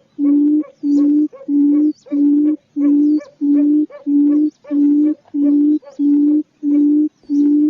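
A bird call repeated in an unbroken, very regular loop. Each note is a short higher onset leading into a held low hoot, about five notes every three seconds, with faint high chirps behind.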